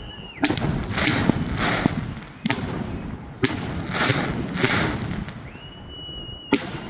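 A 128-shot consumer fireworks cake firing: about eight sharp bangs at uneven intervals, each trailed by crackle. Near the end, a whistle rises in pitch and then holds before another bang.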